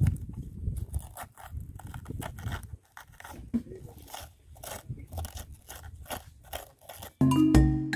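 Kitchen knife slicing into a raw cabbage head, quick repeated crisp crunching cuts as the centre is hollowed out. Music starts about seven seconds in.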